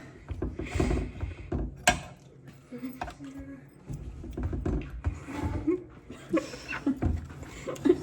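Low, indistinct talk and murmuring, with a few sharp clicks, the loudest about two seconds in.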